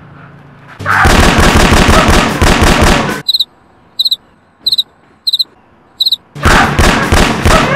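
Rapid machine-gun fire running for about two seconds, then stopping. In the gap come five short high chirps about two-thirds of a second apart, and near the end the rapid fire starts again.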